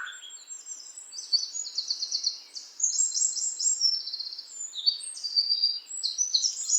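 Small songbird singing: a quick succession of high, rapid trills and twittering phrases, one straight after another.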